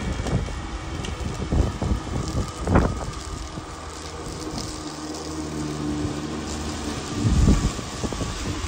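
Walk-behind lawn mower running steadily as it is pushed across the grass, with gusts of wind buffeting the microphone.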